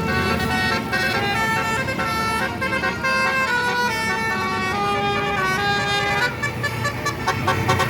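Telolet basuri musical bus horn playing a tune: several notes sounding together, held and changing pitch in steps, over a low engine rumble.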